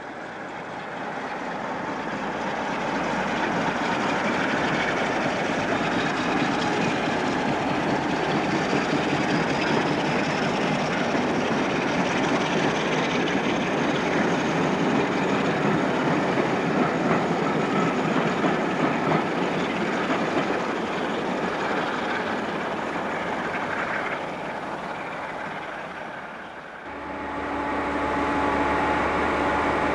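A diesel-hauled passenger train running through a station, with steady engine and wheel noise and a faint whine rising in pitch. About 27 seconds in it cuts to a diesel railbus (Pacer-type DMU) idling at a platform, a steady hum with a few fixed tones.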